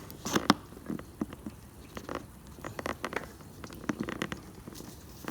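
Flathead screwdriver clicking and scraping against a metal tab as it is pried up to bend it to 90 degrees: irregular small clicks and scrapes, the sharpest about half a second in.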